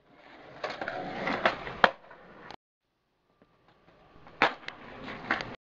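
Skateboard rolling on concrete sidewalk, its wheels making a steady grinding rumble, with sharp clacks of the board hitting the pavement, the loudest about two seconds in. The sound cuts out for a moment, then more rolling and another sharp clack follow about four and a half seconds in.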